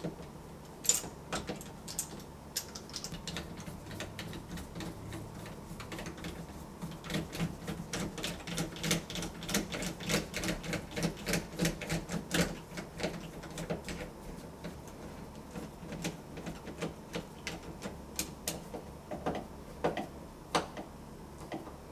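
Small metal clicks and rattles of doorknob hardware being handled and fitted onto the door, a run of quick ticks, busiest in the middle, over a faint steady hum.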